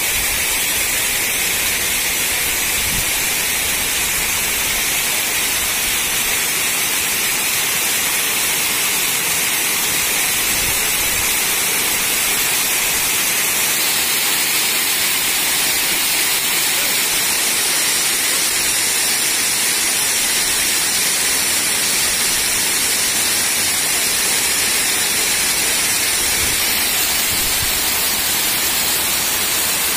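Waterfall: falling water making a steady, loud rush of spray and splash, unbroken throughout.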